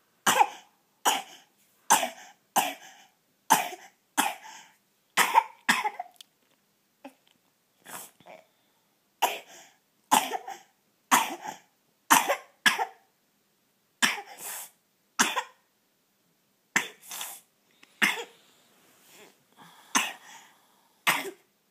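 A coughing spasm: about twenty short, sharp coughs in a row, roughly one a second, broken by a few brief pauses.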